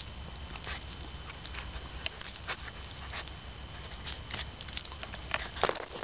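Wire-haired dachshund digging at a burrow, biting and tugging at sticks and roots: irregular crackling and snapping of twigs and rustling leaf litter, with a couple of louder snaps near the end.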